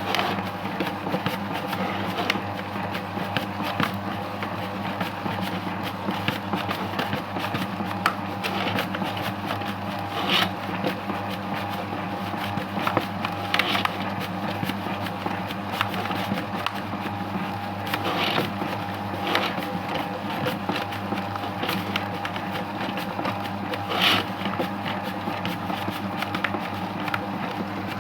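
Homemade electric dough-mixing machine running steadily with a constant motor hum, with frequent small clicks and a few louder knocks or scrapes as the dough is worked.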